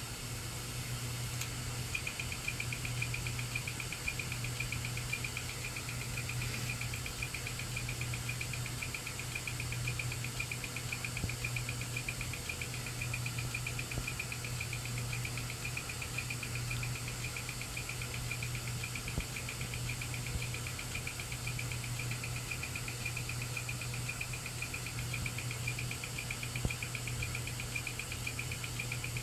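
Malfunctioning hard drive running with its cover off: a steady low hum from the spinning platter, joined about two seconds in by a high, rapidly pulsing chirp that keeps on.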